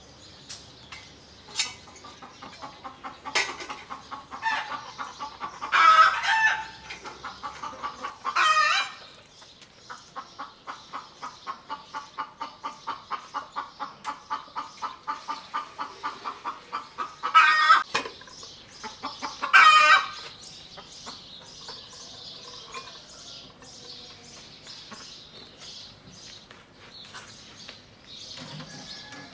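Chickens clucking: a hen's rapid clucking at about three to four a second for several seconds, broken by four loud, drawn-out squawking calls.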